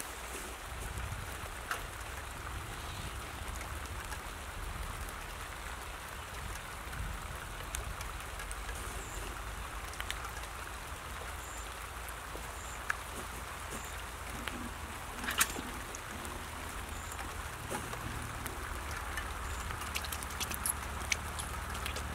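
Outdoor ambience: a steady low rumble of wind on the microphone with a light crackling patter, and scattered sharp clicks and taps as hands work the tyre trap, its metal lid and the wicker basket, the loudest click about two-thirds of the way in.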